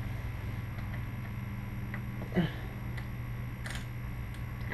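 A steady low hum with a few light, scattered clicks of tools being handled, and a short squeak about two and a half seconds in.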